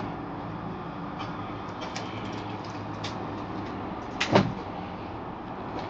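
Steady low background noise with a faint hum, a few light clicks, and one louder knock a little over four seconds in.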